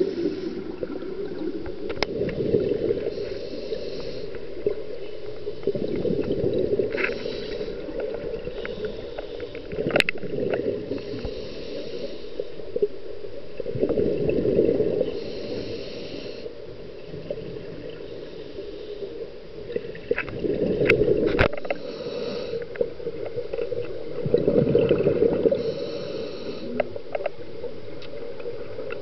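Scuba diver breathing through a regulator underwater: a hiss on each inhale alternating with a burst of exhaled bubbles, about every four seconds.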